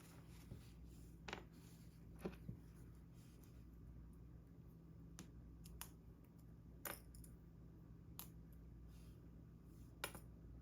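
Small hard mechanical-keyboard parts being handled: faint, scattered light clicks and taps, about eight or nine at uneven intervals, two in quick succession near the end.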